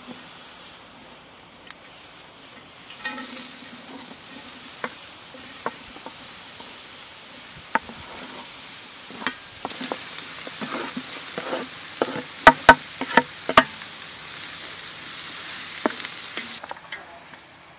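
Sliced onions sizzling as they hit a hot cast-iron cauldron, the hiss starting suddenly a few seconds in, with a wooden board and spoon scraping and knocking against the pot. A quick run of loud, sharp knocks comes about two-thirds of the way through.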